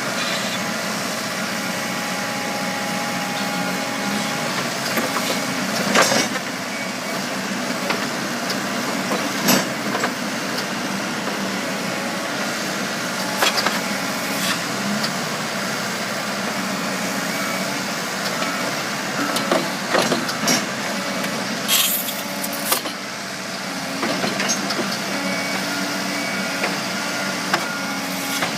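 Backhoe loader's diesel engine running steadily, with scattered clanks and knocks and a short hiss about three-quarters of the way through.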